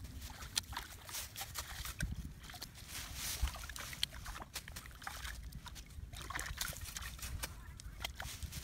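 Muddy water in a shallow pool splashing and sloshing as it is scooped and stirred by hand, with many irregular small splashes.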